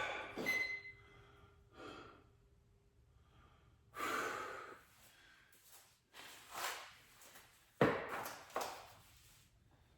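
A man breathing hard from the exertion of weighted cable crunches: about five forceful exhales or puffs of breath, a second or two apart, with quiet in between.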